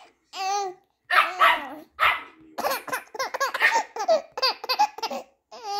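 A dog barking and yapping in play in a run of short calls, coming thick and fast in the middle, with a baby laughing.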